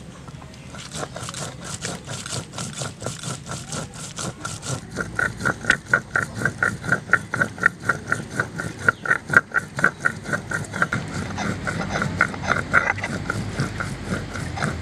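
Stone roller worked back and forth over a flat grinding stone (sil-batta), grinding wet red paste: quick, even scraping strokes, about four a second, starting about a second in and growing louder from about five seconds in.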